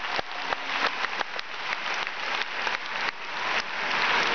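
Arena crowd applauding: scattered separate claps at first, thickening into fuller, louder applause near the end.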